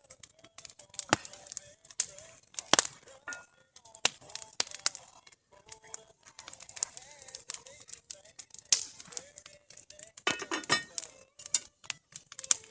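Wood campfire crackling with frequent sharp pops, and a faint wavering whistle through the first part.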